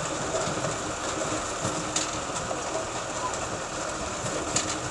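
Tractor-drawn potato harvester at work: the tractor engine runs steadily under the clatter of the harvester's chains and webs, with a few sharper knocks, one about two seconds in and another near the end.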